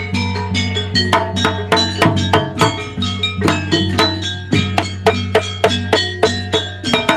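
Jaranan gamelan ensemble playing: a fast, dense run of struck, ringing metal notes with drum strokes over a steady low hum.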